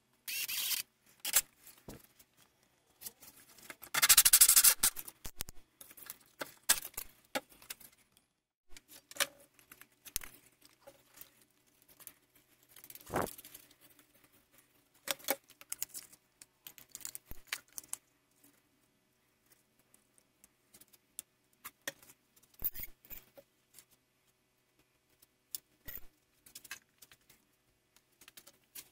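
Scattered small clicks, taps and rustles of hands working small parts on a tabletop: a plastic lamp socket being fitted and screwed onto a cut disc. A louder noisy burst of about a second comes a few seconds in.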